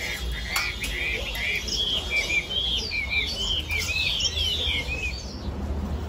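Caged songbirds chirping: a quick run of short whistled notes from several birds that stops near the end, over a low steady rumble.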